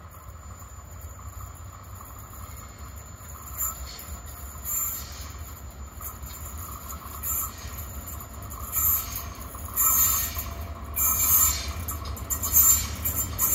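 Freight train of car-carrier wagons hauled by a diesel locomotive rounding a curve: wheels squealing against the rails in repeated high shrieks that start a few seconds in and grow louder and more frequent as the train approaches, over a steady low rumble.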